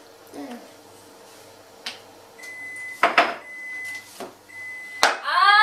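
A kitchen appliance's steady hum stops about two seconds in, and the appliance then sounds three long, high beeps. A wooden rolling pin knocks a few times on a floured wooden table, and a child starts singing near the end.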